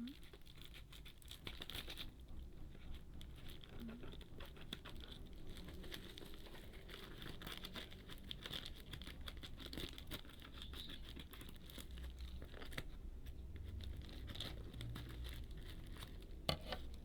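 A shoe parcel being torn open by hand, its packaging crinkling and crackling the whole time.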